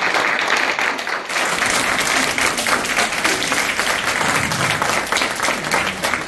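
Audience applause: many people clapping steadily together.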